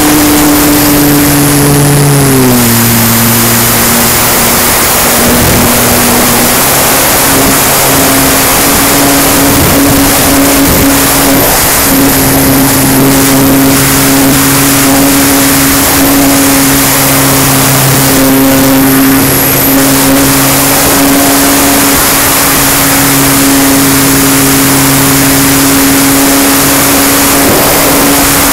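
Onboard sound of an electric RC plane in flight: the 12-cell E-flite 160 brushless motor and propeller running with a steady whine over a loud rush of air on the camera's microphone. The motor's pitch drops a step about two seconds in, then holds steady.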